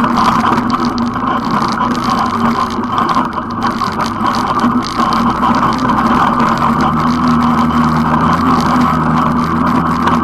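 ATV engine running steadily while riding, at a fairly even speed.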